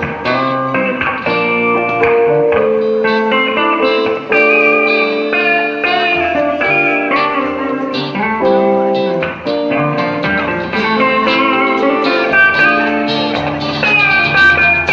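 Live band playing an instrumental passage: a Stratocaster-style electric guitar plays picked melody notes over held chords and a bass line.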